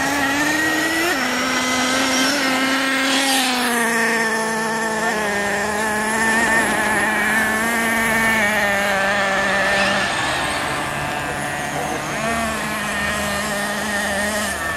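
Several radio-controlled model cars racing, their small motors making a continuous high buzz that glides up and down in pitch as they speed up and slow down.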